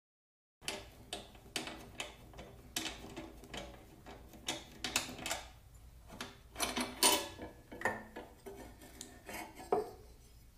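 Irregular metallic clinks, taps and knocks as the head bolts and the cylinder head of a Briggs & Stratton L-head lawn mower engine are handled and worked loose from the block, starting about half a second in.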